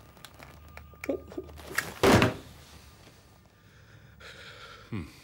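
A heavy thump about two seconds in, the loudest sound here, after a few small knocks; near the end a softer rushing noise that ends in a short falling low sound.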